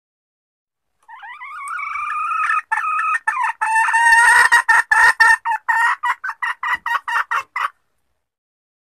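A junglefowl hen calling, a lure recording of the hen's mating call. A drawn-out rising call begins about a second in and breaks into a fast run of clucks that quickens, then stops abruptly.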